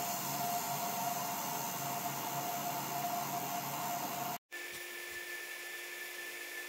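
ComMarker Omni 1 UV galvo laser engraver running while it engraves basswood: a steady whir with a constant tone. It cuts out for a moment about four and a half seconds in, then carries on with a higher-pitched tone.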